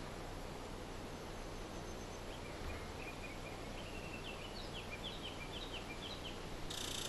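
A small bird singing a series of short, quick chirps that grow louder and climb in pitch, over a steady low hiss; near the end a louder hiss sets in suddenly.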